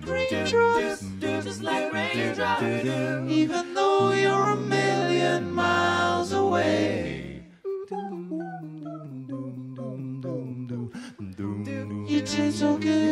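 Live band performance with singing voices over sustained chords. About seven and a half seconds in the music cuts out for a moment, comes back thinner and quieter, then fills out again near the end.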